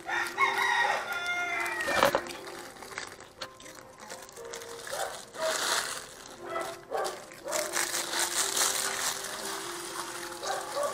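A rooster crows once, a drawn-out call over roughly the first two seconds. After it come cats crunching prawn crackers.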